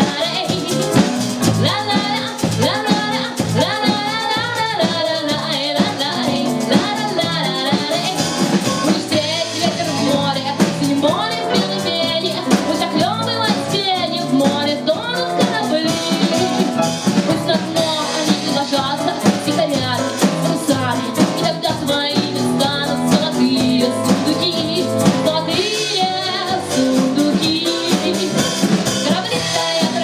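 Live band playing a song: a woman singing over electric bass, electric keyboard and drums.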